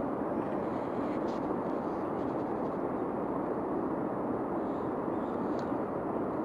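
Tsunami floodwater surging through a harbour, laden with wreckage of houses and cars: a steady, dense rushing noise.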